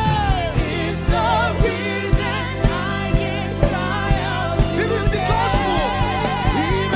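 Live gospel worship music: a solo voice sings a wavering, drawn-out melody without clear words over a band with steady bass, keyboard and regular drum beats.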